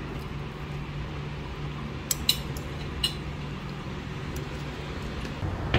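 A steady low hum with three light clinks of kitchenware, two close together about two seconds in and one at about three seconds.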